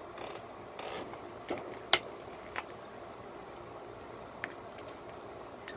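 Pressure flaking cherry quartz with a hand-held flaker: a brief scraping of the tool tip on the stone's edge, then four sharp clicks as small flakes snap off, the loudest about two seconds in.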